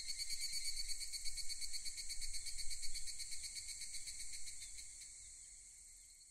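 Crickets chirping in a steady, high-pitched trill of rapid even pulses, fading out slowly toward the end.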